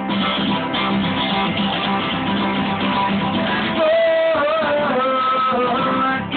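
A guitar-led song playing: a passage between sung lines, with a melody line carried over steady strummed guitar.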